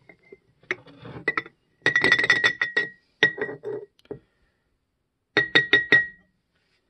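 A white cup being knocked against the rim of a glass mason jar to tip flour into it: runs of sharp glassy clinks, each with a short ring, with a last run of four clinks near the end.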